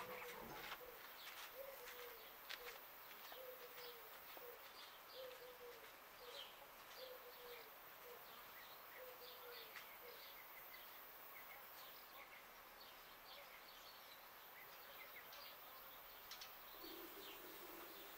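Faint outdoor birdsong: a dove cooing in a steady series of short repeated notes for the first ten seconds or so, with small birds chirping higher over it. A brief knock sounds right at the start.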